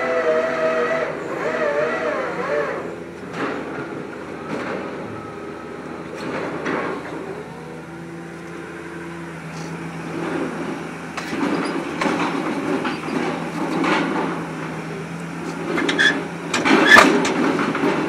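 MAIT HR130 drilling rig's engine and hydraulics running: a whine that wavers in pitch over the first few seconds gives way to a steady hum with rising and falling machine rumble. Sharp knocks come near the end, the loudest about a second before it stops.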